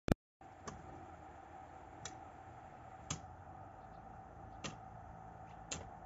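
Short-handled hoe chopping into garden soil: five sharp strikes, about one every second or so, over a faint steady hum. A short loud click sounds at the very start.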